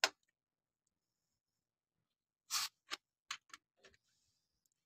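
A few short, sharp clicks and knocks with near silence between them: one click at the start, then a brief scrape about two and a half seconds in followed by four or five quicker clicks.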